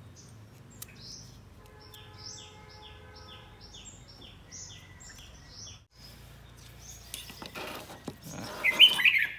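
A bird chirping in a quick run of short, repeated high notes, about three a second. Near the end, cardboard is slid and handled on a wooden tabletop, with a scraping rustle that is the loudest sound.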